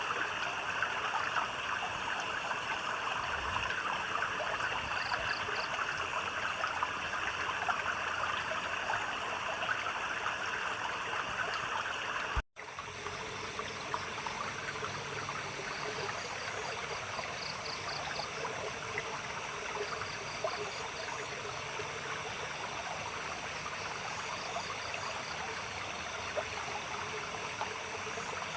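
A small stream trickling steadily, with high, steady insect trilling and short chirping pulse trains now and then. About halfway through, the sound cuts out for a split second and then resumes, with the water a little softer afterwards.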